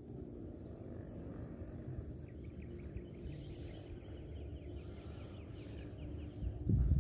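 Outdoor ambience by the water: a steady low rumbling background, with a faint, fast chirping trill from a bird or insect for a few seconds in the middle. Louder low thumps start near the end.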